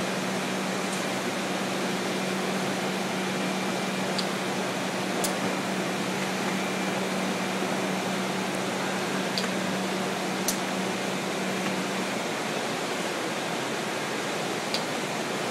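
Homemade box-gluer machine running: a steady whir of belts and rollers with a low hum that stops about three-quarters of the way through, and a few light clicks.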